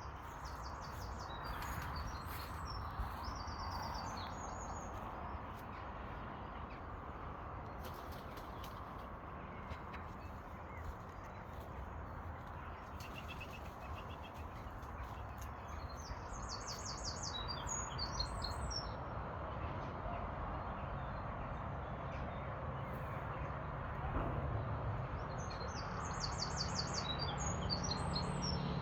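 A songbird singing a short, high, trilled phrase three times, about ten seconds apart, over a steady outdoor background hiss.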